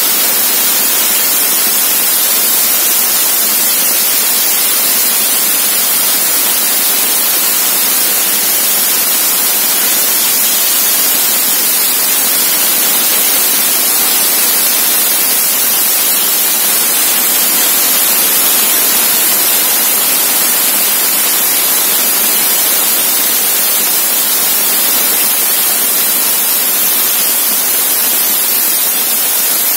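A 4000 W laser cutter cutting 10 mm stainless steel plate: the gas jet at the cutting nozzle hissing, loud and steady, with no change in pitch or level.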